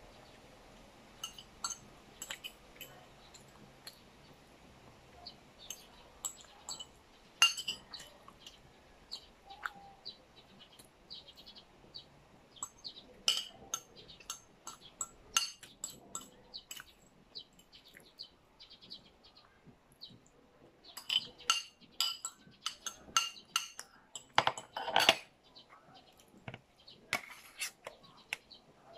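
Fork and spoon clinking and scraping on a small plate and a metal serving tray as food is eaten: scattered sharp clinks, coming thickest about three-quarters of the way through.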